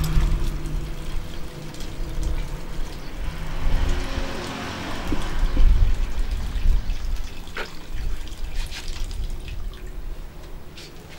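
Hands tearing apart and scattering damp, fibrous worm feed onto coconut coir: soft wet rustling and crackling, with a few sharp ticks later on. A low rumble fades out in the first second or two.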